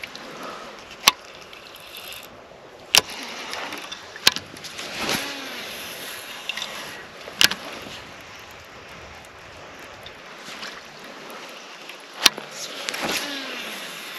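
Baitcasting reel being cast and wound in: twice the spinning spool whirs and falls in pitch, and sharp clicks from the reel sound five times.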